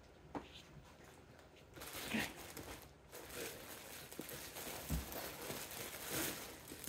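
Faint rustling and handling noises, with a small click near the start and a soft knock about five seconds in.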